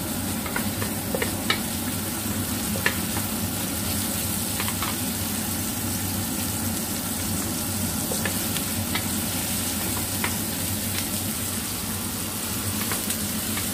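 Chopped shallots, garlic and chilies sizzling in hot oil in a stainless steel wok over high heat, stirred with a wooden spatula that gives scattered light knocks and scrapes against the pan.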